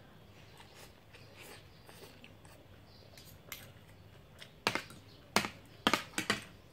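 Spoon and fork clinking and scraping against a plate as food is eaten, about five sharp clinks in the last two seconds.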